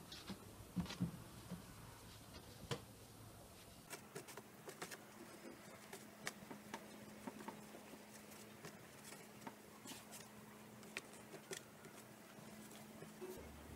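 Faint, irregular light taps and clicks of hands rolling and twisting dough ropes into a braid on a wooden board.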